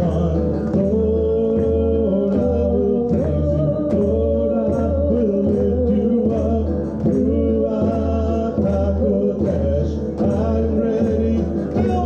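Live song: a woman singing over a steady beat on a hand frame drum, with guitar accompaniment.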